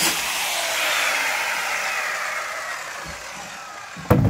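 Circular saw motor spinning down after the trigger is released, its whine falling steadily in pitch and fading over about three seconds. A brief loud burst comes near the end.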